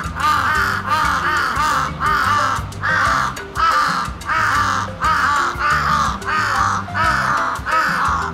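A crow cawing over and over, about two harsh caws a second, each one arching up and down in pitch, over background music with a low bass line.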